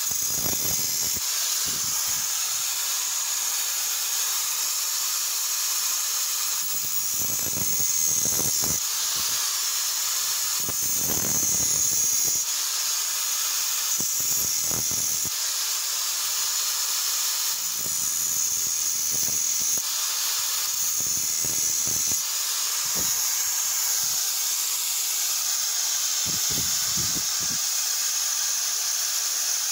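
Electric angle grinder running with a steady high whine, its abrasive disc grinding the steel of an axe head in repeated passes of a second or two.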